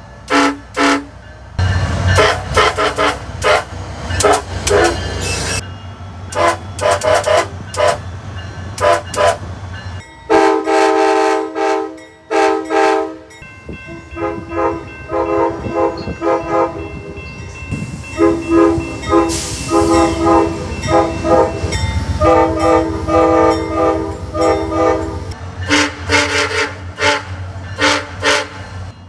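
SunRail commuter locomotives' multi-chime air horns sounding again and again, many quick toots and several longer blasts, one of them held for about three seconds near the middle, over the low rumble of the passing diesel locomotive.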